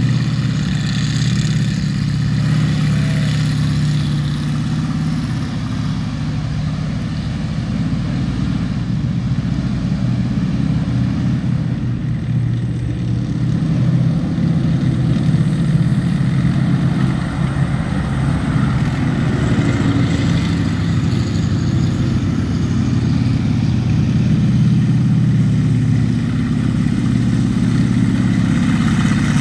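WWII M4 Sherman tank engines running as the tanks drive across a soft, muddy field: a steady low rumble that grows somewhat louder from about halfway through.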